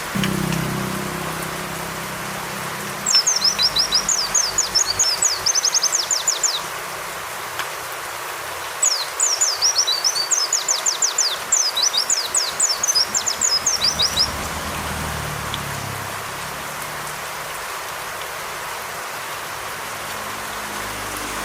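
Two phrases of a white-eye (pleci) song, each a fast run of high chirps lasting about three to five seconds, over a steady recording of falling rain. The last several seconds hold only the rain.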